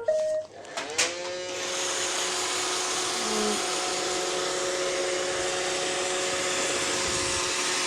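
iRobot Roomba 620 robot vacuum starting a cleaning run. A few short beeps at the start are followed about a second in by its brush and vacuum motors spinning up, and they then run with a steady whine.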